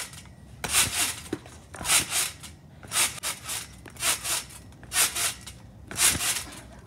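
A trampoline bounced on about once a second by a rider standing on a scooter: a swishing rasp of the mat and springs at each bounce.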